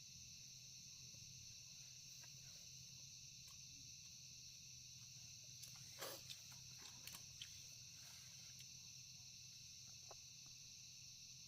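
Steady night chorus of crickets, faint, with a low hum beneath it. A handful of short clicks or knocks come about six to seven and a half seconds in.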